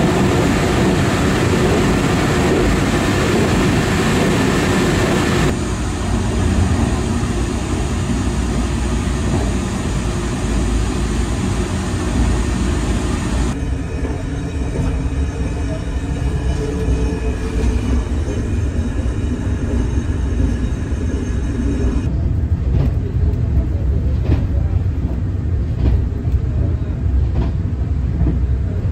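Cabin running noise of a Taiwan Railways EMU3000 electric multiple unit at speed: a steady low rumble of wheels on track, its tone changing abruptly three times, with a run of clicks over the last several seconds.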